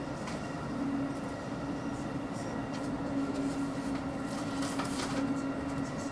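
Running sound inside a JR West Special Rapid electric train travelling slowly: a steady low hum over constant rolling noise, with a few brief clicks and rattles.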